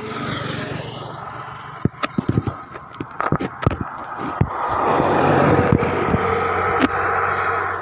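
Coach bus driving past close by, its engine and tyre noise swelling to a peak about five to six seconds in. A run of sharp clicks and knocks comes about two to four seconds in.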